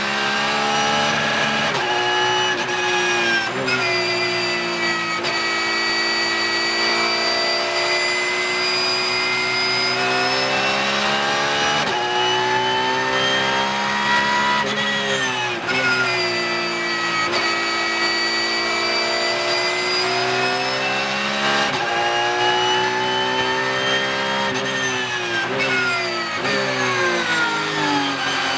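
Porsche 992 GT3 Cup car's 4.0-litre flat-six racing engine heard inside the cockpit at full throttle, rising in pitch and dropping sharply at each upshift. Near the end the car brakes and the revs fall in steps as it downshifts for a corner.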